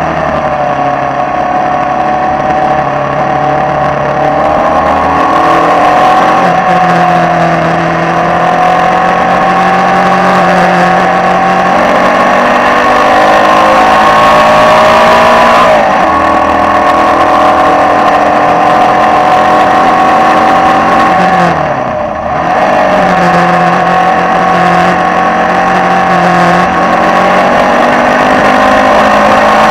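A Formula Vee racing car's air-cooled Volkswagen flat-four engine running hard at high revs, heard from the cockpit on track. The pitch climbs slowly, drops sharply about sixteen seconds in, then falls and dips in loudness around twenty-two seconds in before climbing again.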